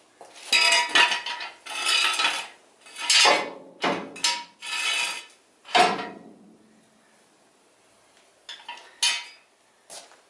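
Steel jack stands clanking: a run of metal knocks and rattles over the first six seconds as they are set down and positioned. A few light footsteps follow near the end.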